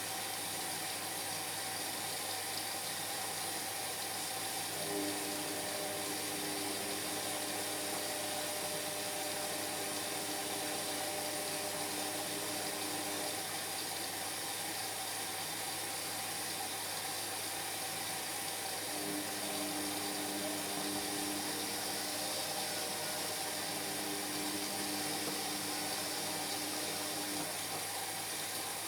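Indesit MyTime washing machine on its Whites 40 wash, with a steady rush of water throughout. The drum motor hums in two stretches of about eight seconds, the first starting about five seconds in and the second near the end, with a pause between them.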